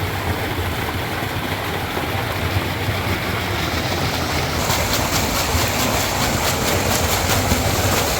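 Loud, steady rushing noise with a deep rumble, starting and stopping abruptly. From about halfway, fast, rapid clicking rides on top.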